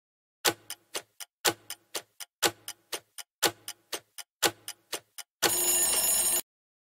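Countdown-timer sound effect: a clock ticking, one loud tick each second followed by several fainter ticks, five times over, then a loud alarm ringing for about a second as the countdown reaches zero, cutting off suddenly.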